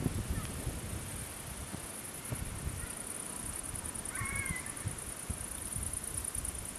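Wind buffeting the microphone in uneven gusts ahead of an approaching thunderstorm, with a steady high hiss behind it. A single short bird call about four seconds in.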